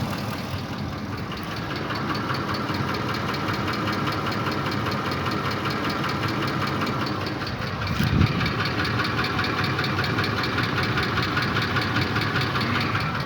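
Ford Triton 5.4 3V V8 engine idling with a fast, even ticking knock, the knock under diagnosis. There is a brief low thump about eight seconds in.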